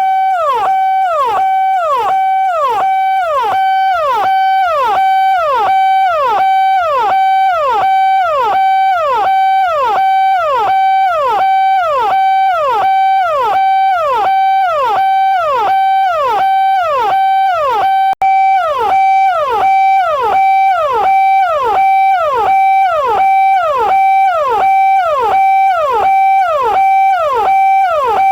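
Indian police electronic siren: a held tone that slides down in pitch, then jumps straight back up, repeating about one and a half times a second. It cuts out for an instant about two-thirds of the way through.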